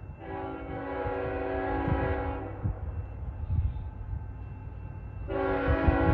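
Diesel freight locomotive's multi-tone air horn, unseen as the train approaches: one long blast of about two seconds, then a second long blast starting about five seconds in, over a low rumble.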